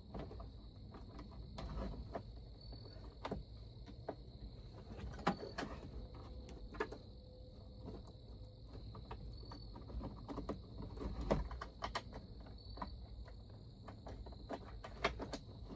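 Scattered small clicks and knocks of hands working a dome light, its wiring connector and plastic interior trim back into place, over a faint steady high insect chirring.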